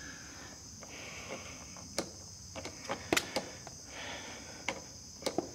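Small sharp clicks and light scraping of a hand tool working at a tight factory rubber handlebar grip on a motorcycle, a few scattered clicks over the seconds. Crickets chirp steadily behind.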